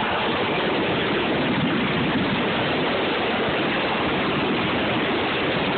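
Steady rushing hiss of fireworks fountains (gerbs) spraying tall columns of sparks, with no separate bangs.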